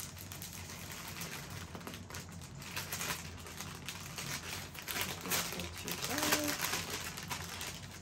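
Printed wrapping paper rustling and crinkling in the hands as a wrapped package is turned over and unfolded. A brief hum from a voice comes about six seconds in.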